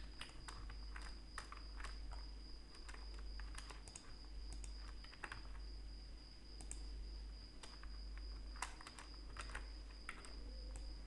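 Computer keyboard keys and mouse buttons clicking at an irregular pace as shortcuts are pressed, over a faint steady high-pitched whine and low hum.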